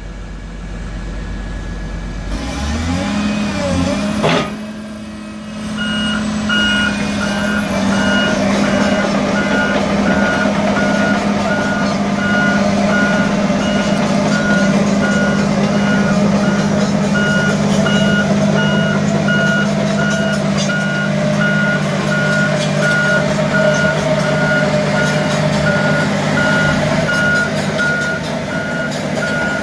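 Heavy diesel engine of a tracked harvester revving up about three seconds in and then running steadily under load. Over it, a travel alarm beeps over and over while the machine drives on its tracks.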